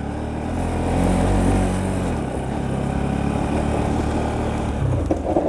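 Motorcycle engine running under load on a slippery dirt track, its revs and level rising briefly about a second in, then easing back to a steady pull.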